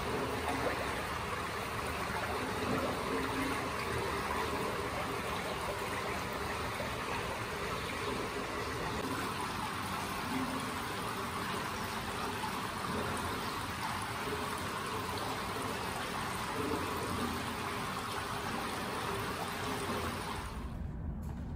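Steady trickling and rushing of an indoor swimming pool's circulating water, cutting off near the end.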